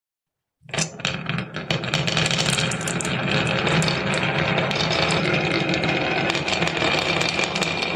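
Marbles rolling and clattering down a marble run track: a steady rumble full of rapid clicks, cutting in abruptly about half a second in.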